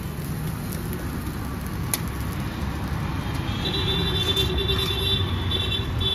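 Steady low rumble of road traffic, with a sustained tone joining about three and a half seconds in.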